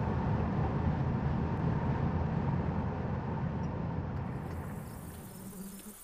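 Road and engine noise heard inside a moving vehicle's cabin: a steady low rumble that slowly fades out toward the end.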